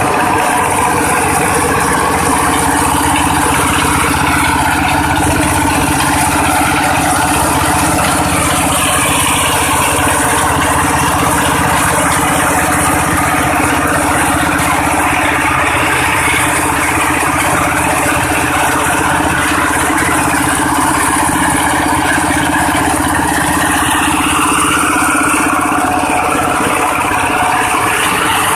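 Corn sheller machine for unhusked ears running steadily, its engine and shelling mechanism making a continuous loud rattling run.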